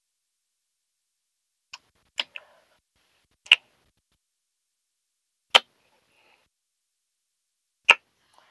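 Kissing sounds: about six short, sharp lip smacks, unevenly spaced, starting about two seconds in.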